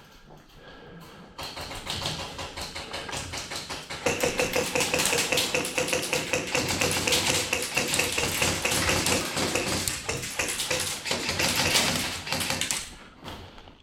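Airsoft electric guns firing in sustained rapid clicking strings. It starts about a second and a half in, gets louder at about four seconds, and stops just before the end, with a faint steady whine under the firing in the middle.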